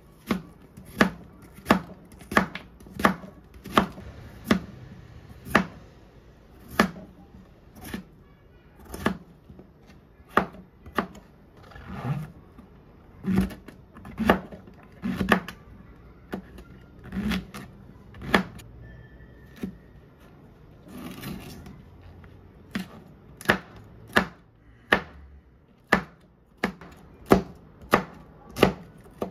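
Kitchen knife chopping vegetables (onion, potato, mushroom, chili peppers) on a cutting board: sharp knocks of the blade striking the board, about one or two a second, in quicker runs near the start and near the end with sparser cuts in between.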